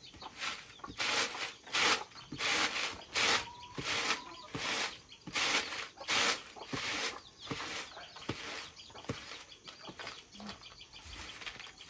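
Dry brown pieces rattling and swishing on a wire-mesh sieve tray shaken by hand, in a steady rhythm of shakes that grows softer after about eight seconds.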